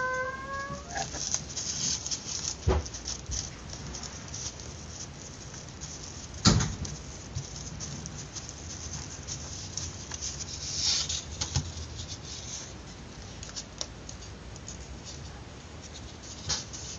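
Paper rustling and crinkling with small scattered taps as fingers roll a strip of paper tightly around a thin metal rod. There are a couple of sharper knocks on the table, the loudest a little over six seconds in.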